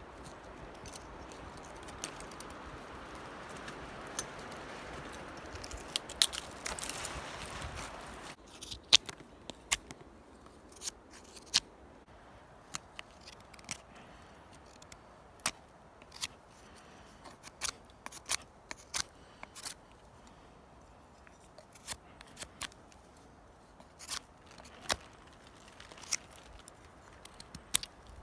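Fixed-blade knife whittling a green stick into a tent peg: short, sharp slicing cuts through the wood, roughly one a second. For the first eight seconds a steady rushing noise lies under the cuts, then drops away.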